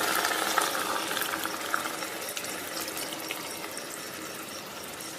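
Milk poured into a hot kadhai of cooking grated carrots: a splashing pour that gradually tapers off over the first two seconds into a quieter simmer.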